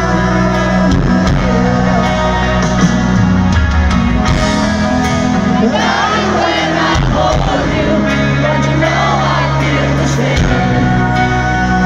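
Live rock concert heard from within the audience: a piano-led ballad with the band, with singing and crowd shouts over the music.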